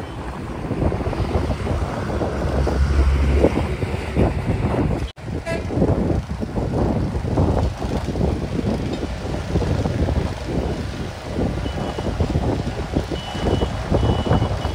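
Rumbling vehicle or machinery noise with wind buffeting the microphone, broken by a brief dropout about five seconds in; near the end a thin high-pitched beeping comes and goes.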